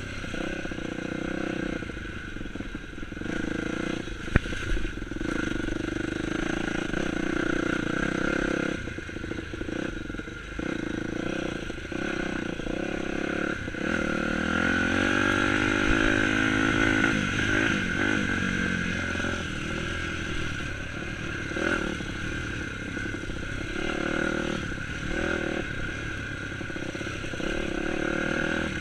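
Dirt bike engine running under a riding load, its pitch rising and falling with the throttle. A single sharp knock sounds about four seconds in.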